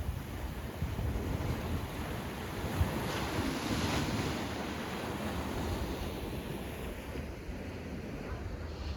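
Sea waves washing onto the shore, one swelling and breaking about three to four seconds in, with wind rumbling on the microphone.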